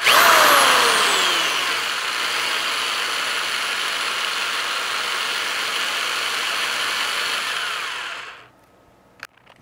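Cordless drill running steadily for about eight seconds, spinning three wires to twist them into a pair, then winding down; it starts abruptly, loudest in the first second.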